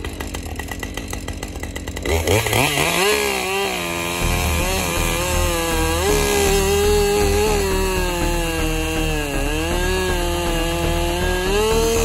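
Two-stroke chainsaw idling, then revved up about two seconds in and held at full throttle as it cuts into a fallen tree trunk, its pitch dipping and recovering as the chain bogs under load.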